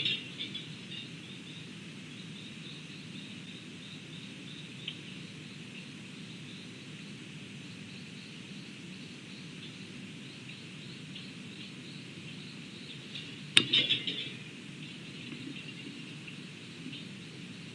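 Faint steady outdoor ambience with small repeated insect-like chirps. About thirteen and a half seconds in comes a sudden loud clatter that dies away over about a second.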